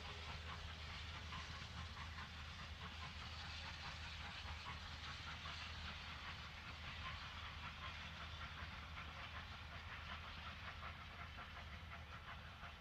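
Two steam locomotives of the 2-8-0 Consolidation type working a train away into the distance: a faint, rapid, rhythmic beat of exhaust and running gear that fades slightly towards the end.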